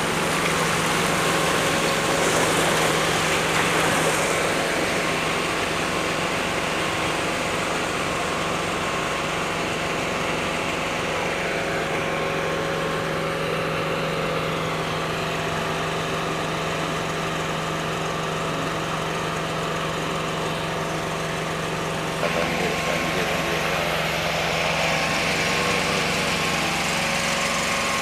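An engine running steadily at one even pitch, with a faint hiss of water beneath it.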